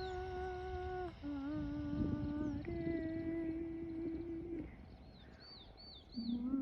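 Unexplained humming tones, each held a second or two, stepping between pitches: a higher steady note, then a lower wavering one, then a middle one. The hum fades out about two-thirds of the way through and returns just before the end. Small bird chirps sound high above it near the end.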